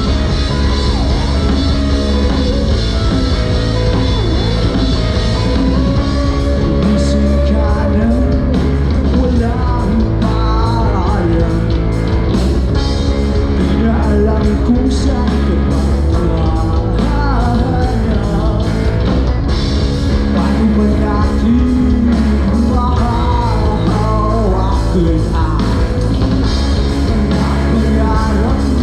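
Loud live rock band playing: full drums and bass under a singer's lead vocal.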